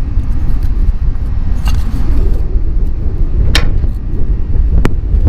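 Strong gusty wind buffeting the microphone, a heavy rumbling roar, with a few light clicks from loose items on the table.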